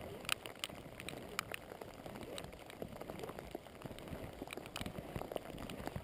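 Rain falling, with irregular sharp drips tapping close by.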